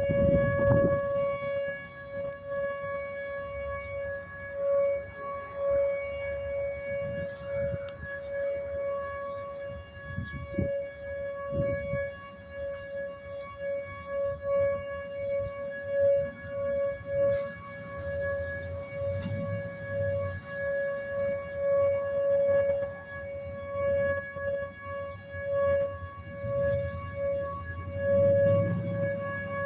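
Tornado warning siren sounding during a scheduled test: one long tone held at a steady pitch throughout. Bursts of low rumble come at the start and again near the end.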